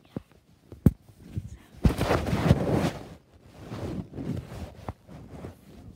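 Fabric rustling of bedsheets and a blanket, with two sharp knocks from a handheld phone being moved in the first second; the rustling is loudest about two to three seconds in.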